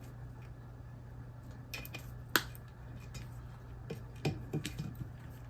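Hand snips cutting through the wires of a small transformer: a few sharp snaps, the loudest about two and a half seconds in, and a quick run of smaller clicks near the end, over a steady low hum.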